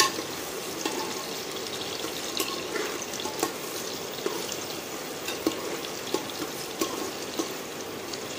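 Sliced onions sizzling in hot oil in an aluminium pot, with a slotted metal spatula scraping and clicking against the pot now and then as they are stirred.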